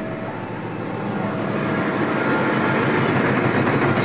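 A KAI CC206 diesel-electric locomotive hauling a container freight train approaches the crossing, its rumble growing steadily louder. The last of a horn note cuts off just after the start.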